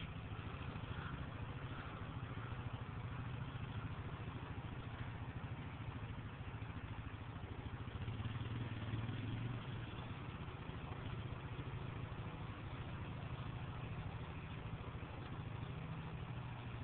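An engine idling steadily: a low hum with a faint hiss over it, swelling slightly about eight to ten seconds in.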